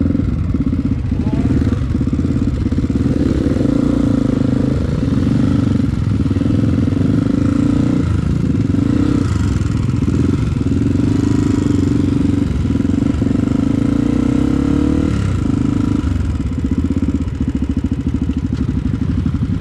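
Motorcycle engine running close to the microphone at low speed, pulling through soft sand, with the revs rising a little in a few short surges of throttle.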